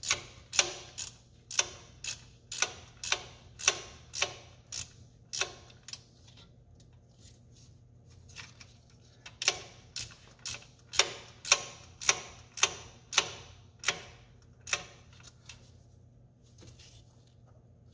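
Ratchet wrench clicking in steady strokes, about two a second, as the accessory drive belt tensioner's adjusting bolt is wound in to take up belt slack. The clicking pauses for a few seconds midway, resumes, and thins out near the end.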